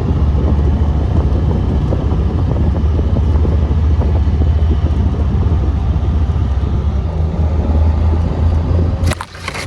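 Vehicle engine running steadily with a loud, low rumble, dipping briefly near the end.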